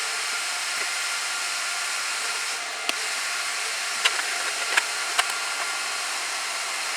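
Cooling fans of a Gigabyte R180-F34 1U rack server running at full speed with a steady, high rushing whoosh. Four short clicks fall between about three and five seconds in.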